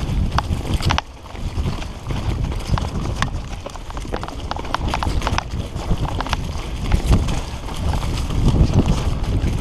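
Fully rigid Redline Monocog singlespeed mountain bike rattling over a rough dirt trail at speed: irregular sharp clicks and knocks over a steady low rumble of tyres on the ground.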